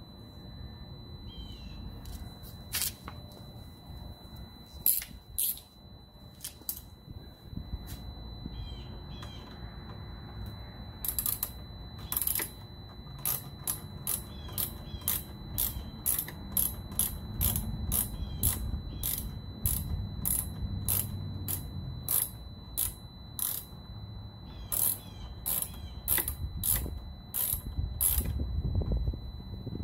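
Ratcheting hand tool clicking as the screws holding a motorcycle's side fairing panel are backed out. A few scattered clicks come first, then a steady run of about two clicks a second from about halfway through.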